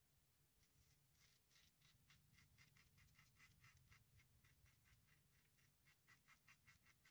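Rockwell 6C safety razor with a Personna Super Blue blade scraping through a week's stubble over lather, in short quick strokes about three or four a second, starting about half a second in. Faint, crisp rasp of the blade cutting whiskers.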